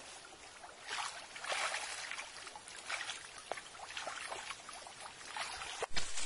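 Shallow stream water splashing and dripping as a mosquito net is dragged through it and lifted out, with a sharp thump near the end.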